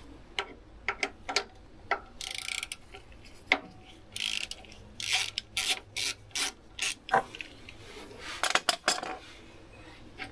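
Hand socket ratchet clicking in short irregular bursts, with light metal scraping, as the drain cap on the bottom of the oil filter cartridge housing is turned loose.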